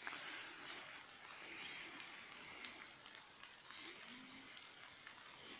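Quiet outdoor ambience: a steady high-pitched hiss, slightly louder about a second and a half in, with a few faint small ticks.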